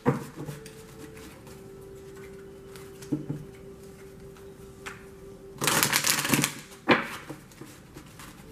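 A deck of tarot cards being shuffled by hand: a quick burst of card flutter lasting about a second, about five and a half seconds in, followed by a single sharp tap.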